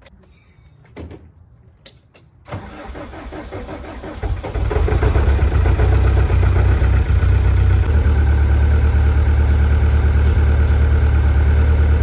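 GEHL 4840 skid steer's diesel engine being started: a couple of light knocks, then the starter cranks it over about two and a half seconds in, it catches about a second and a half later and settles into a loud, steady idle, started to warm up.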